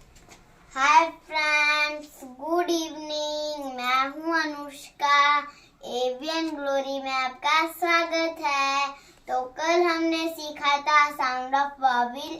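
A child singing alone, unaccompanied, in several sustained melodic phrases with brief pauses between them.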